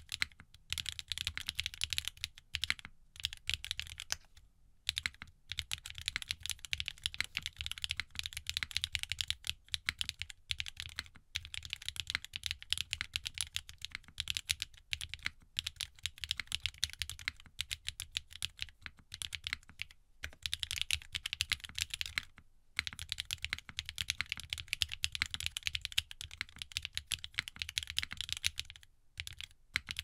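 Fast, continuous typing on a mechanical keyboard fitted with SWK F3 switches, in an aluminium-plate Geon Frog Mini with no foam and ABS doubleshot keycaps: a dense run of key strokes broken by a few short pauses.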